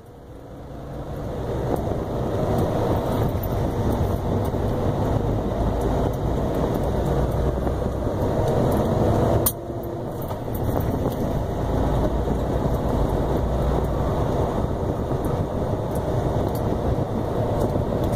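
Semi-truck engine and road noise heard inside the cab, building over the first couple of seconds and then running steadily. About halfway through it dips suddenly for a moment before coming back.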